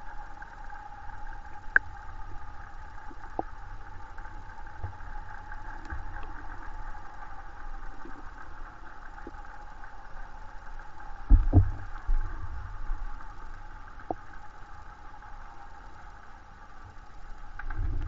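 Muffled sound picked up by a camera held underwater in a river: a steady hum with a low rumble, a few sharp clicks, and a burst of low thumps about eleven seconds in.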